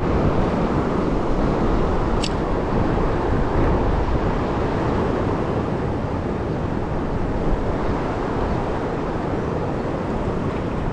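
Mountain stream water rushing steadily over rocks, an even, loud wash of sound.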